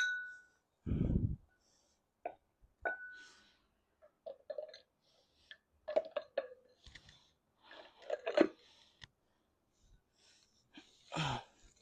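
Metal parts of an e-bike hub motor clicking, knocking and scraping as the motor core is worked into its housing, with two short ringing metallic pings, one at the start and one about three seconds in, and a dull low thump about a second in.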